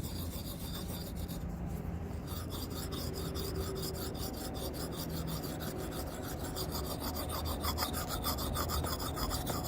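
Hatchet blade being honed on a whetstone lubricated with bacon fat: a gritty rasp of steel on stone in quick, even back-and-forth strokes. The stone is biting into the metal, raising a slurry of steel.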